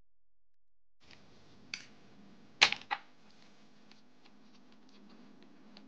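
Small clicks and taps of metal tweezers working against a laptop's palm-rest frame while a small camera module is pried loose. It starts about a second in, with three sharper clicks around the middle, two of them close together, and fainter ticks after.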